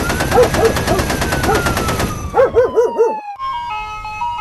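A loud rattling sound effect with a whistle that rises and then slowly slides down, cutting off about three seconds in. A tinkling chime-like melody follows.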